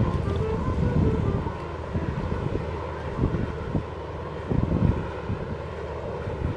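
Wind buffeting the microphone over ocean surf, a rumble that swells and drops in gusts.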